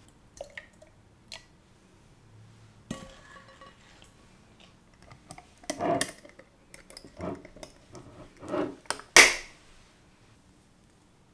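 A glass swing-top jar and its clamp lid being handled, giving a string of glassy clinks and clacks. The loudest is a sharp clack about nine seconds in, as the glass lid is clamped shut.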